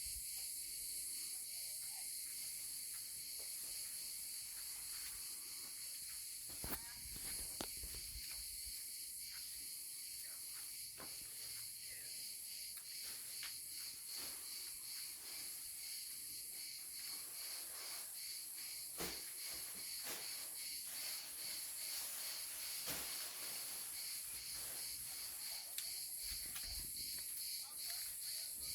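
A steady, high-pitched chorus of insects trilling with a fine, even pulse, with a few faint clicks scattered through it.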